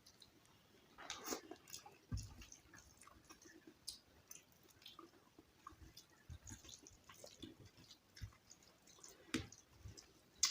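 Eating sounds: close-miked chewing and soft wet squishing of starchy rice and mashed bhorta, with scattered small clicks and smacks, the loudest about a second in and again near the end.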